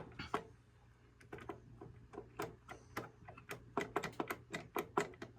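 Williams Lucky Ace pinball machine's worn flipper assembly clicking and clacking in quick, irregular taps as the flipper is worked back and forth by hand with the coil plunger held still. The clatter is the slop of worn flipper parts, calling for a flipper rebuild. A low steady hum sits underneath.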